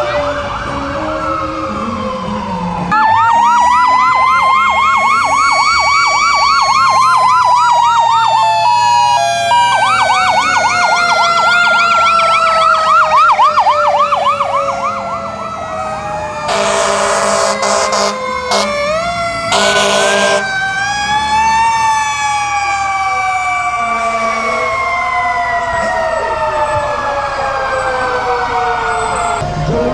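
Fire truck sirens sounding together: a fast yelp alongside long wails that rise and then slowly fall. About halfway through, two short loud horn blasts cut in over them.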